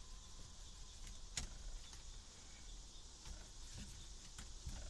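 Faint rubbing of a rag scrubbing a steering wheel, with light knocks and one sharp click about a second and a half in.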